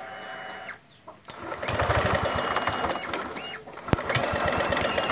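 Honda Vario scooter engine started and running with a fast, rattling "keracak keracak" clatter from the cam chain, a sign of a slack cam chain whose tensioner needs replacing. The clatter starts about a second and a half in and dips briefly about a second before the end.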